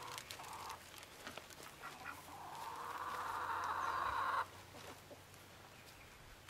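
A chicken's drawn-out call, growing louder over about two seconds and then stopping abruptly. Before it come a few faint clicks and rustles.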